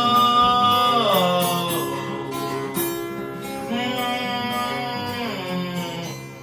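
Acoustic guitar being strummed and picked, with a man's held sung note that slides down and ends about a second in.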